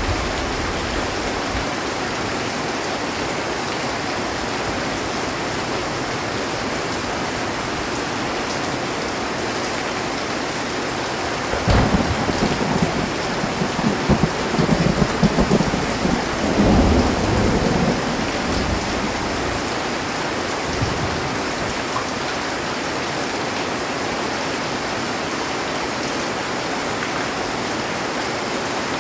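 Heavy rain drumming steadily on a metal roof. About twelve seconds in, a thunderclap cracks and rolls on in low rumbles for several seconds before dying away.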